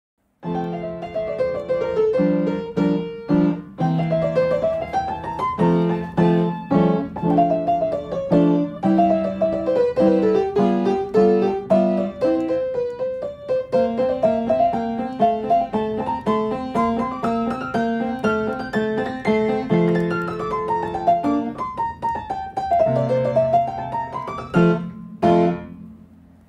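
Background piano music: quick runs of notes falling and rising over steady low chords. It starts about half a second in and fades away at the very end.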